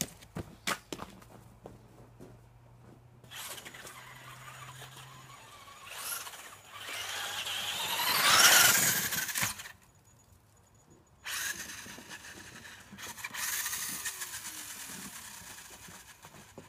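Radio-controlled car's motor whining as it is driven, climbing in pitch to its loudest about eight seconds in, cutting out for a second or two, then whining again more softly.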